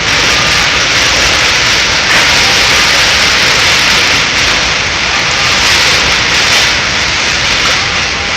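Windstorm: a loud, steady rushing hiss of strong wind.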